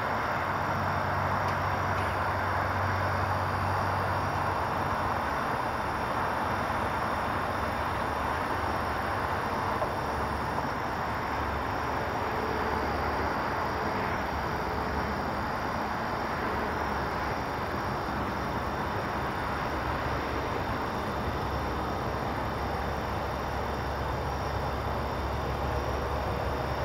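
Steady roar of interstate highway traffic passing below, tyre and engine noise blending into a constant hiss with a deeper rumble in the first few seconds.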